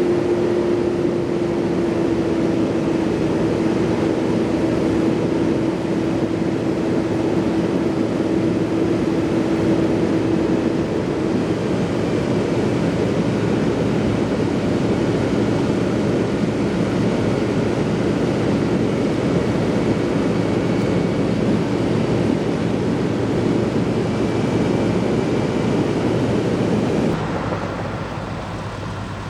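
A steady engine drone with a pitched tone that slowly sinks over the first ten seconds or so; the sound drops abruptly and gets quieter near the end.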